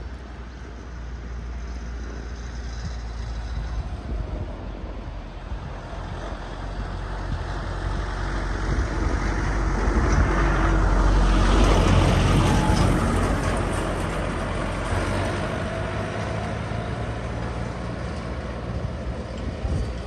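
A motor vehicle passing close by, growing louder to a peak about halfway through and then fading away.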